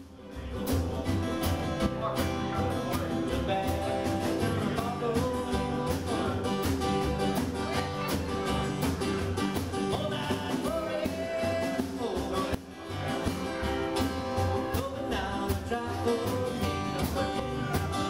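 Small live band playing: acoustic guitar strumming and drums keeping a steady beat, with singing over it. The music drops out for a moment about two-thirds of the way through.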